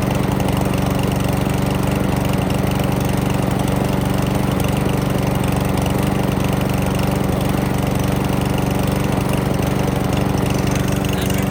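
Craftsman push mower's 5.5 hp Briggs and Stratton single-cylinder four-stroke engine running steadily at a constant speed. It is being left to run so that the excess oil from overfilling, which has got into the exhaust, can burn off.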